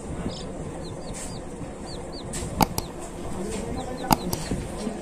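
Baby chick peeping: short high cheeps in little runs. Two sharp taps stand out, one midway and one about a second and a half later.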